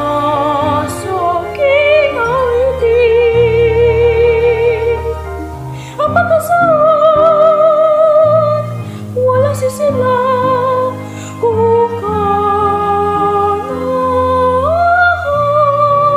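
Operatic-style singing: long held notes with a wide, even vibrato, stepping to higher notes about six seconds in and again near the end, over sustained low accompaniment.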